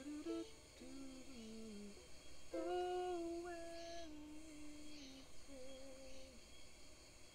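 A voice humming a slow, gentle melody, with long held notes and slides between them.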